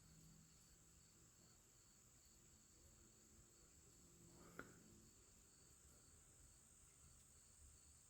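Near silence: a faint steady high-pitched whine with one soft tick about halfway through.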